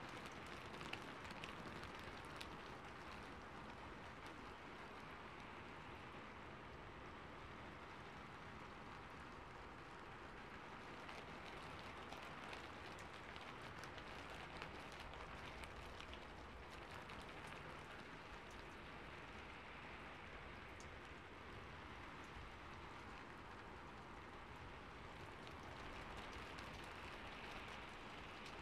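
Steady soft rain, with faint clicks of laptop keys and a computer mouse now and then.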